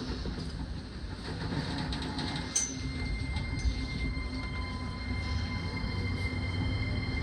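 Running sound heard inside the motor car of a JR East E231 series 1000 commuter train with its original, unrenewed VVVF inverter drive: low rumble from the traction motors and wheels with a thin steady whine over it, growing gradually louder. There is a sharp click about two and a half seconds in.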